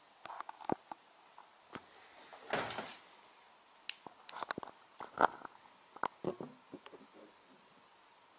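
Handling noises: irregular small clicks and light knocks, with a brief rustle about two and a half seconds in.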